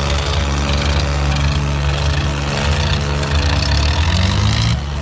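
Diesel tractor engines running steadily at high load in a tug-of-war pull, with the exhaust pouring black smoke. The pitch rises slightly near the end.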